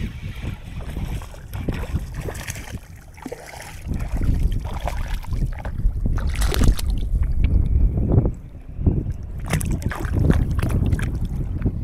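Wind buffeting the microphone in gusts, a heavy low rumble, with choppy water lapping close by.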